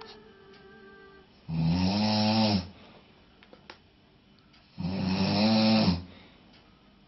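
A man snoring loud, with a low buzzing pitch: two long snores, each a little over a second, about three seconds apart, with quiet gaps between.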